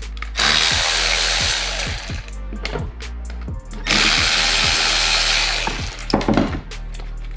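Handheld power tool running in two runs of about two seconds each, the second starting about four seconds in.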